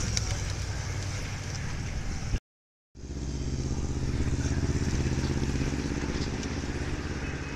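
A motorcycle engine running steadily as a group of road racing bicycles rides past, louder about halfway through. The sound cuts out completely for about half a second a little after two seconds in.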